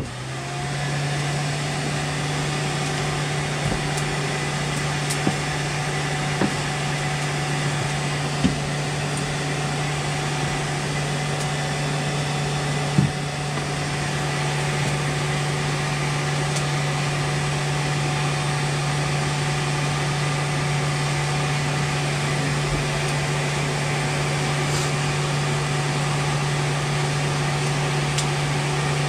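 An electric motor-driven machine switched on, spinning up over about a second and then running steadily with a constant low hum and air noise, with a few light clicks along the way.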